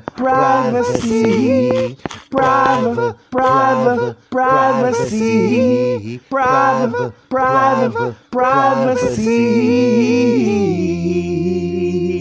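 Layered a cappella vocals singing short phrases separated by brief gaps, then holding one long chord near the end.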